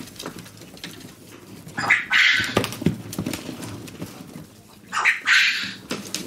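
Quail calling twice, two short harsh calls about three seconds apart.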